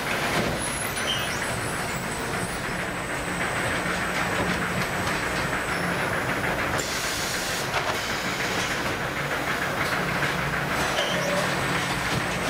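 Steady machine noise from an automatic sack-stacking palletizer at work, with a short hiss about seven seconds in.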